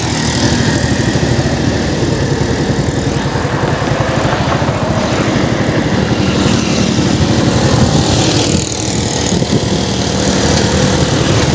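Motorcycle engine running steadily while riding at road speed, mixed with wind rushing over a helmet-mounted microphone. The engine note dips briefly about two-thirds of the way through.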